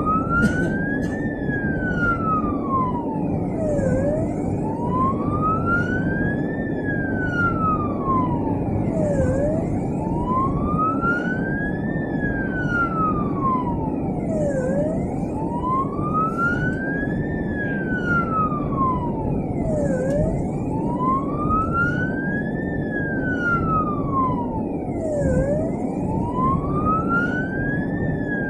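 Ambulance's own wail siren heard from inside the cab while driving: a slow rise and fall, about five seconds per cycle, repeating evenly over steady engine and road noise.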